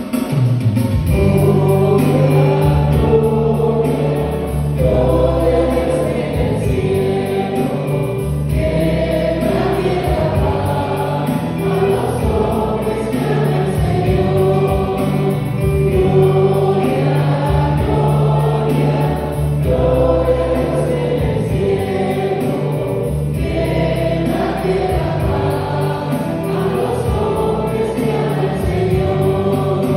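Church choir singing a liturgical hymn with instrumental accompaniment, over steady sustained bass notes.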